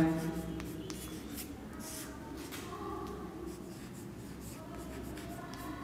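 Chalk writing on a blackboard: a run of short scratchy strokes as a line of words is written.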